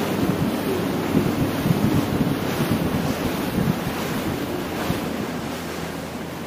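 Wind buffeting the microphone and water rushing and splashing against the hull of a rigid inflatable motorboat under way at speed, a dense gusty noise that eases slightly near the end.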